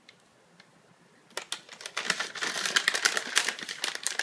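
Treat packaging rustling and crinkling as treats are taken out, a quick irregular run of crackles and clicks starting about a second and a half in.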